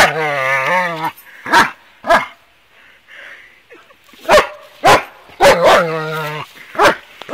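Dog barking and growling while it plays with a log: a long growling bark about a second long at the start, a few short sharp barks, a quieter spell in the middle, then another long growling bark followed by a single bark.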